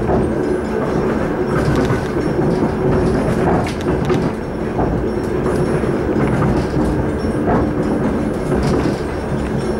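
Suburban passenger train heard from inside the carriage, running steadily at speed with a continuous low rumble and hum. Now and then the wheels knock over rail joints.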